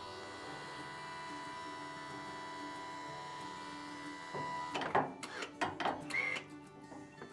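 Electric hydraulic pump of a powered cargo-bed lift running with a steady hum as it extends the lift cylinder, stopping about four and a half seconds in. Then a run of sharp metallic clicks and knocks as the cylinder and its bracket are handled.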